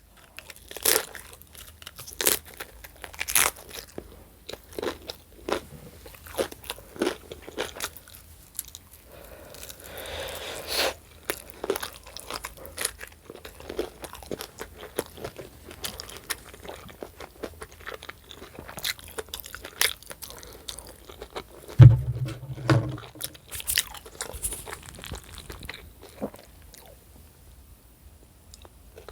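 Close-up chewing and crunching of a chip, with irregular crisp crunches and wet mouth sounds. A brief low hum about two-thirds of the way in.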